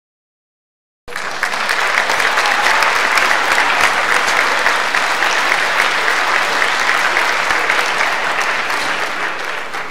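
Concert audience applauding, a dense clatter of many hands that starts abruptly about a second in and tapers off near the end.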